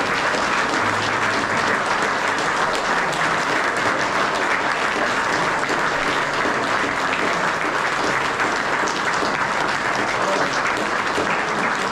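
Audience applauding with sustained clapping, and perhaps some cheering, after the gold medal winners are announced.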